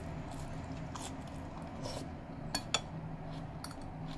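Chewing a mouthful of sautéed lettuce with tomato, with two quick clinks of a utensil on a plate about two and a half seconds in, over a low steady hum.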